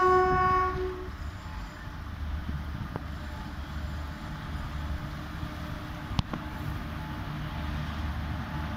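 Horn of a WAP-4 electric locomotive sounding one steady note, cutting off about a second in, then a steady low rumble from the approaching train.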